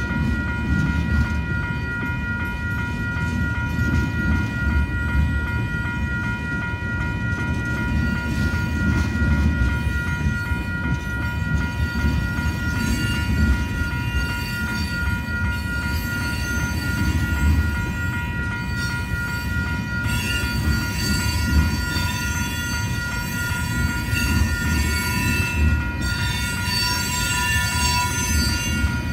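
Loaded tank cars of a freight oil train rolling past over a level crossing: a continuous low rumble of steel wheels on the rails, with the crossing's warning bell ringing steadily. Thin high wheel squeal joins in during the second half.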